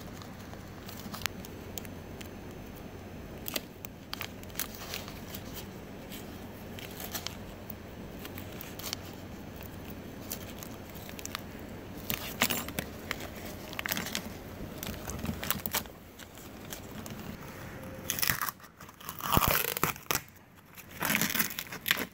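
Scraping and crinkling of hand work on a fiberglass patch: a plastic spreader and a small blade worked over resin-wet glass cloth and masking tape, with scattered light clicks over a steady hiss. Louder rustling comes in bursts near the end as peel ply is handled.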